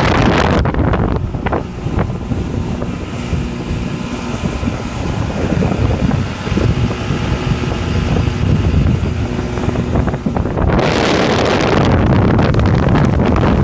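Mercury outboard motor running steadily as the boat moves across the water. Wind buffets the microphone briefly at the start and again from about eleven seconds in.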